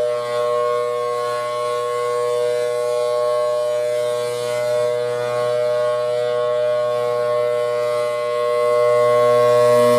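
Outdoor warning siren sounding a steady tone of two notes held together, without rising or falling in pitch, growing louder near the end.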